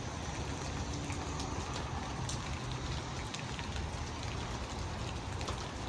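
Steady rain falling during a thunderstorm, with a few sharp drop ticks and a low rumble underneath.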